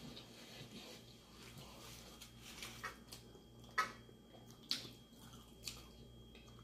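Faint wet eating sounds of shrimp Alfredo pasta: chewing and slurping creamy noodles, with a few short sharp smacks or clicks, the loudest about four and five seconds in.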